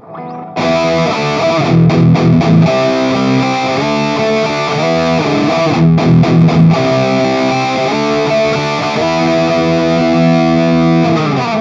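Electric guitar with a distorted tone played through the M-Vave Tank Mini, sounding held chords that change a few times. Near the end the pitch slides downward.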